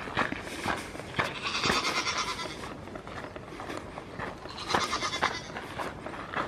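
Goats bleating off and on, with a person's footsteps through grass about twice a second.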